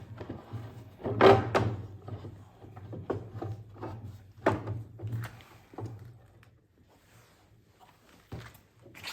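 Clunks and knocks from a Comatic baby power feed being swung and pivoted on its ball-joint mount. The loudest comes a bit over a second in, followed by several lighter knocks.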